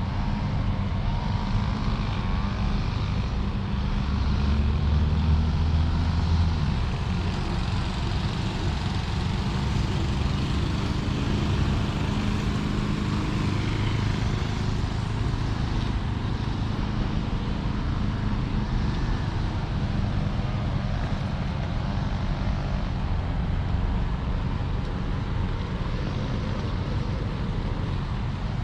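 Cruiser skateboard wheels rolling over pavement: a steady low rumble that swells a little about five seconds in.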